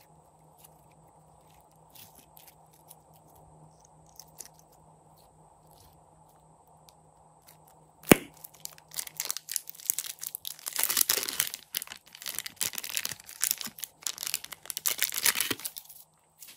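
Faint squishing clicks of slime being stretched, then a sharp click about eight seconds in. After it comes loud, continuous crinkling of a clear plastic piping bag as green slime is squeezed out of it, which stops abruptly near the end.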